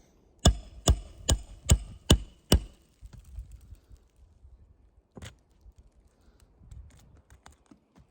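Hammer blows on a metal roof snake, the tool worked under an asphalt shingle: six quick, ringing strikes about two a second, then one more a few seconds later. The strikes drive the tool to free the shingle, which cracks it.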